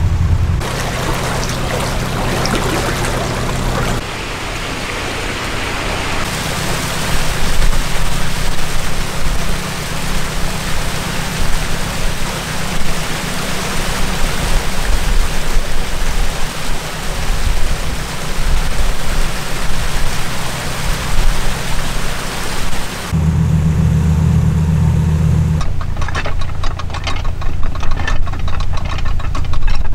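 Narrowboat diesel engine running steadily under a loud, steady rushing noise; the engine comes up strongly for a couple of seconds near the end, and the sound changes abruptly several times between shots.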